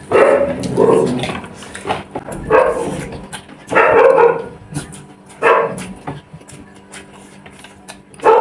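A dog barking in about five single barks spaced irregularly over the first six seconds, then stopping.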